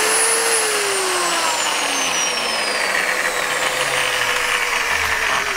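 Fiolent angle grinder's electric motor running with a loud, rough noise and a whine that slowly falls in pitch. The repairer takes the noise for a burnt-out armature rather than worn bearings.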